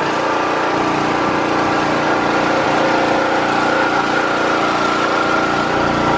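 A pressure washer's small engine running steadily, with no change in speed.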